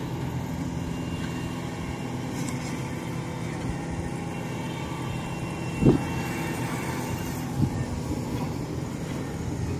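Kubota DC-105 rice combine harvester's diesel engine running steadily as the tracked machine drives off across a harvested paddy, with two brief low thumps about six and seven and a half seconds in.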